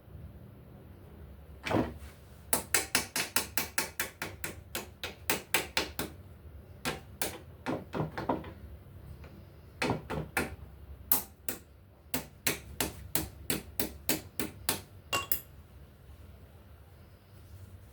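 Repeated sharp taps, like light hammer strikes on a metal part: one strike, then runs of quick blows at about three to four a second with short pauses between runs.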